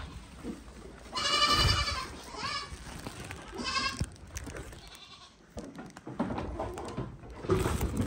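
Goats bleating: a loud, wavering bleat about a second in, followed by two shorter ones, among the general noise of the herd.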